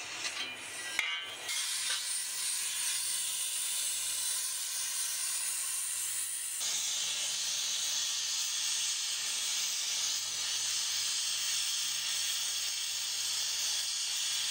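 Hand-held gas torch flame hissing steadily as it heats cast brass while a filler rod is fed into the joint; the tone of the hiss shifts slightly about six and a half seconds in.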